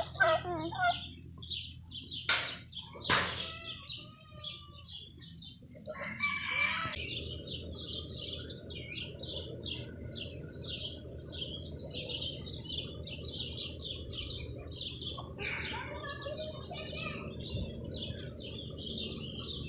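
Many birds chirping continuously in short, high calls over a steady low rumble. There are a few sharp clacks in the first few seconds.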